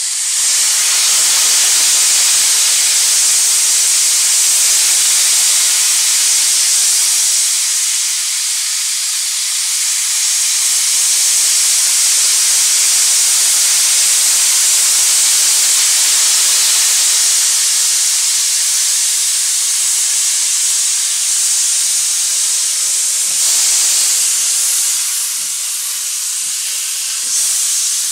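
A steam locomotive venting steam in a loud, steady hiss, with no exhaust beats.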